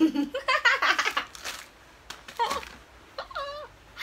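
People giggling and laughing in short spells, with a wavering sing-song voice about three seconds in.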